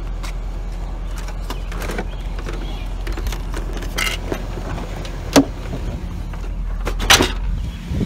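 A plastic CD boombox being handled and lifted out of a trash bin: scattered rustles and knocks, with sharper knocks about five seconds in and twice near the end, over a steady low rumble.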